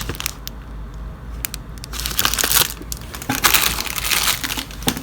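Packaging crinkling and rustling in irregular bursts as the ring light kit's parts are handled and unwrapped, busier in the second half.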